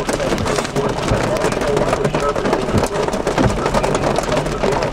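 Rain and small hail hitting the car's roof and windshield, a dense, steady run of small ticks, heard from inside the car.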